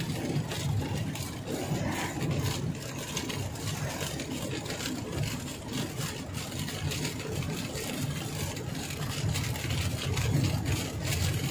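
Steady cabin noise of a car driving on a wet road in rain: a low engine and road drone, with tyre noise from the water and many faint ticks of rain on the windscreen.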